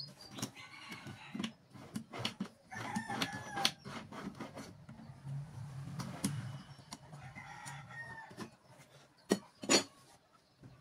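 Steel ball-bearing drawer slides rattling and clicking as they are pulled out and pushed back in, with two sharp metal clacks near the end. A rooster crows several times.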